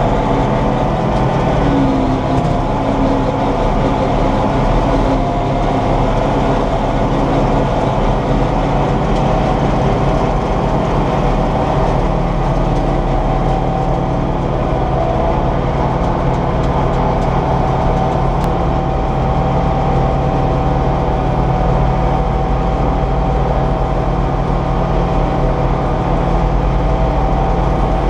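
Tractor engine running steadily under load, driving a New Holland 719 trailed forage harvester as it picks up and chops grass, heard from inside the tractor cab. A faint steady whine sits over the engine's drone.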